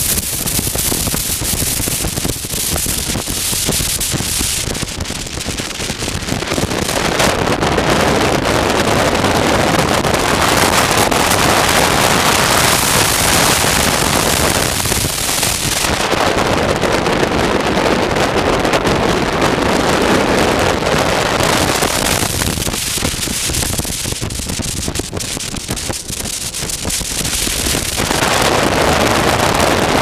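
Wind rushing over a motorcycle rider's helmet-mounted camera microphone at road speed, with the motorcycle's engine buried under it. The rush swells louder for long stretches and eases between them as the bike speeds up and slows through the bends.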